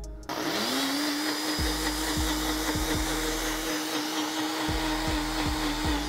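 Ninja countertop blender switched on: its motor spins up within a fraction of a second and then runs at a steady high whir.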